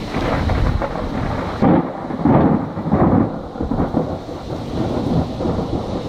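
Thunder rumbling over falling rain, swelling in several loud surges through the first half.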